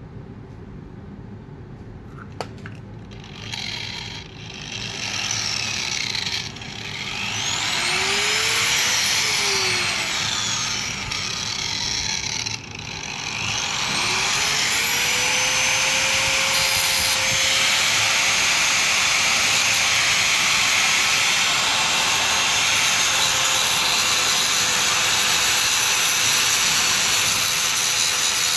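Angle grinder with a cutting disc fitted and its guard off. It spins up and winds down once, then near the middle starts again and holds at a steady full-speed whine, cutting through a steel 15 mm spanner with a harsh grinding hiss.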